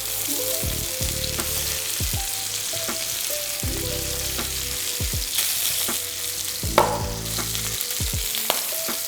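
Chicken thigh frying in sesame oil in a pan, flesh side down: a steady sizzle with a few short knocks now and then.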